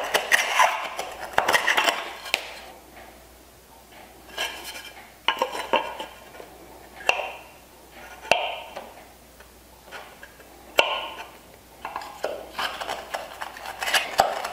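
Steel bench chisel paring and scraping wood at the bottom of a bridle joint's open mortise by hand. Quick scraping strokes for the first two seconds or so, then single short scrapes and sharp ticks every second or two, growing busier again near the end.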